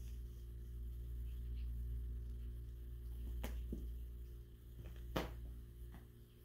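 A few light taps and knocks from a cat playing with a toy, the sharpest about five seconds in, over a steady low room hum.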